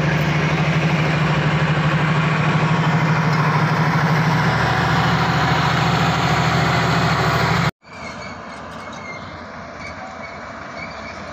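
Heavy diesel engine running steadily close by, with a fast, even pulse. About eight seconds in it gives way abruptly to quieter, even construction-site background noise.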